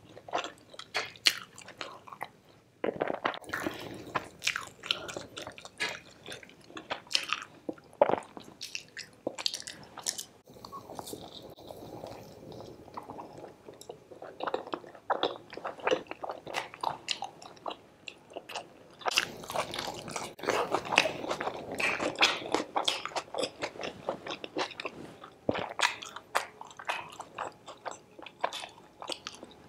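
A person chewing and biting mouthfuls of curry-dipped puri: wet, sticky mouth sounds with irregular crunchy bites, and a short pause about two seconds in.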